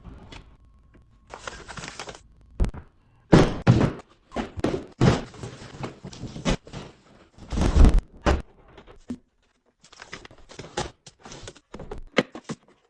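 Household items and containers being set down and handled one after another: an irregular series of thunks and clatters, the loudest about a third of the way in and again near the middle, with short noisy stretches between them.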